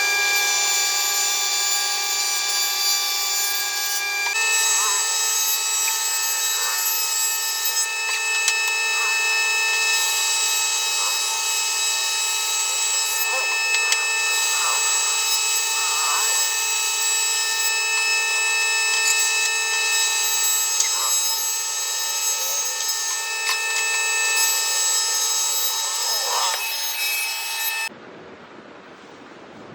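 Electric woodworking power tool running and cutting wood, a steady high whine with a rasping edge, that stops about two seconds before the end.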